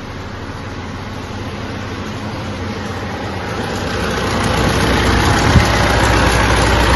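Mitsubishi L200 Triton 3.2 diesel engine idling with a loud timing-chain knock: the chain has stretched and its tensioner can no longer take up the slack. The sound grows steadily louder over the first five seconds, with one sharp knock about five and a half seconds in.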